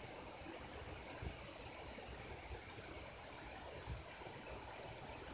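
Quiet, steady hiss of room tone, with a few soft low bumps.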